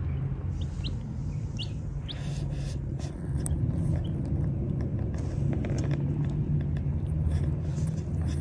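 Baby chicks peeping a few times in the first two seconds, then soft ticking and tapping as they peck at feed, over a steady low hum.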